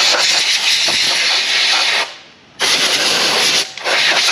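Cordless Dremel rotary tool grinding hardened sealant out of a deep groove in an engine part. It comes in three spells with short breaks, the first break about two seconds in.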